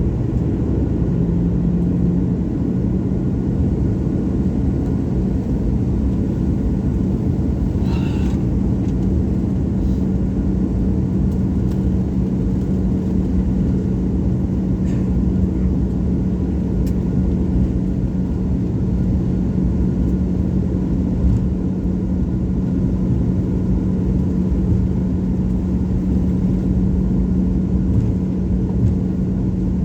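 Jet airliner engines running: a steady, loud low rumble with a constant hum that steps up slightly about a second in.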